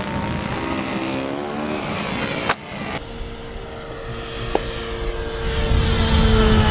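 Engine of a radio-controlled model warbird in flight, a steady drone that wavers slightly in pitch. A sharp click about two and a half seconds in, where the sound cuts to another pass; the engine then grows louder and sinks slowly in pitch toward the end as the plane passes.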